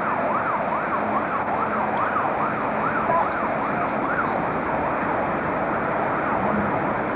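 An emergency vehicle's siren in a fast up-and-down wail, about two cycles a second, fading out about four seconds in, over steady background noise.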